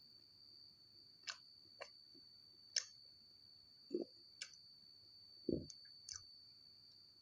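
Close-miked mouth sounds of eating chocolate toast: scattered wet clicks and smacks of chewing, with two louder soft thumps around four and five and a half seconds in, over a faint steady high-pitched whine.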